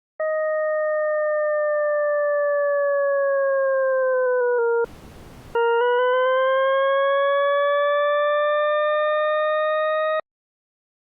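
Computer-generated tone with a few overtones, gliding slowly down in pitch in small steps for about four and a half seconds. A brief soft hiss follows, then the tone returns and glides slowly back up for about four and a half seconds before cutting off suddenly.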